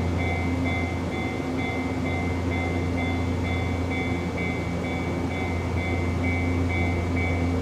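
Steady low hum of an electric train standing at the platform, with a high electronic ding repeating about twice a second throughout.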